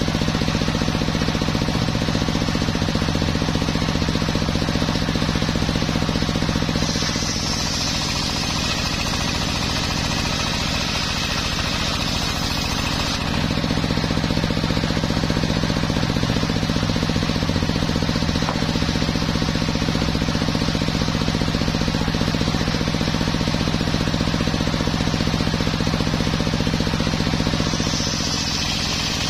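Sawmill circular saw running steadily, a loud machine hum with fast pulsing, as teak boards are fed through the blade. The sound brightens with a higher hiss for about six seconds from some seven seconds in, and again near the end.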